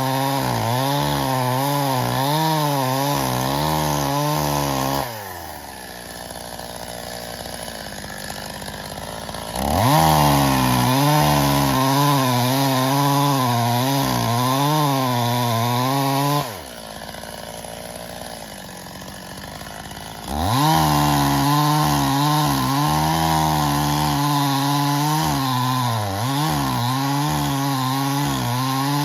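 Stihl MS 270 two-stroke chainsaw cutting birch logs at full throttle, its pitch wavering as the chain loads up in the wood. Twice it drops back to idle for about four seconds, then revs up again into the cut.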